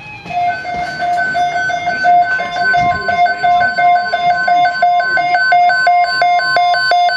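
Electronic beeping at two pitches, repeating faster and faster, with a steady single-pitch alert tone joining about two seconds in: the NOAA Weather Radio warning alarm tone that precedes an alert message.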